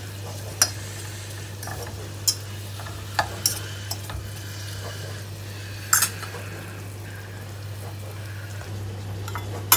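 Spoon stirring sliced red onions in oil in a small aluminium saucepan, knocking against the pan with a few sharp clicks, while the onions begin to sizzle lightly as they start to fry. A steady low hum runs underneath.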